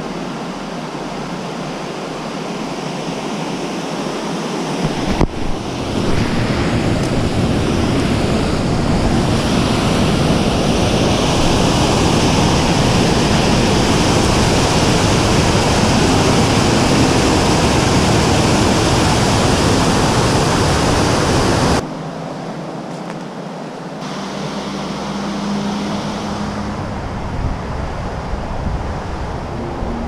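Water pouring over a reservoir dam's spillway, a steady loud rushing that swells about five seconds in, then cuts off sharply about two-thirds of the way through, leaving a quieter rush.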